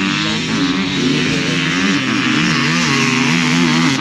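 Vehicle engine running, its pitch rising and falling, over a steady rush of noise.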